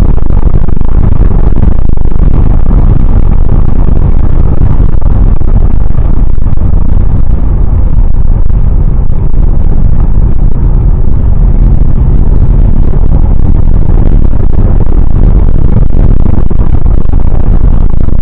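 Loud, steady rumble of a car driving on a wet road, heard from inside the cabin through a dashcam's microphone: engine and tyre noise.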